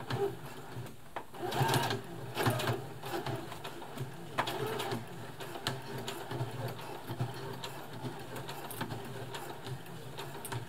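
Brother FS60X Extra Tough computerised sewing machine stitching through a thick, many-layered denim jeans hem with a heavy jeans needle: a steady motor hum with rapid needle clicking, louder in places in the first few seconds.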